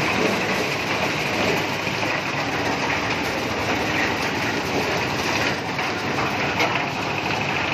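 Engine-driven corn sheller for unhusked maize running steadily, its engine and threshing drum making a continuous dense mechanical clatter.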